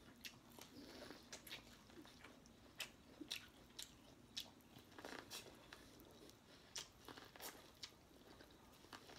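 Faint close-up eating sounds of someone biting kernels off an ear of steamed corn on the cob and chewing, a run of short irregular crunches and mouth clicks.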